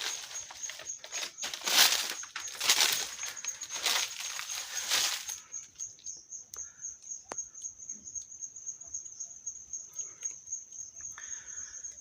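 Irregular rustling and crunching, like steps through dry mulched banana leaves, for about five seconds, then a quieter stretch with a steady high insect trill like a cricket and a few light clicks.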